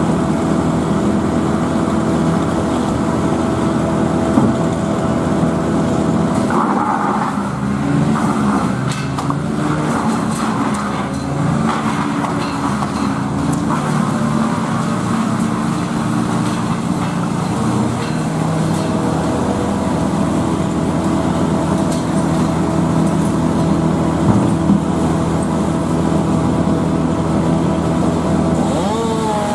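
A machine's engine running steadily and loudly, its pitch wavering for several seconds in the first half and rising near the end.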